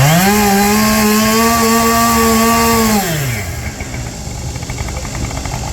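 Chainsaw revved up to full speed, held at a steady high pitch for about three seconds, then let back down to idle.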